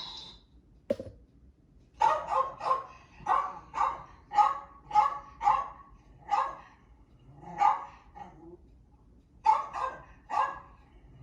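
A dog barking: a quick run of short, sharp barks, about two or three a second, then slower single barks with pauses between them. There is a click about a second in, just before the barking starts.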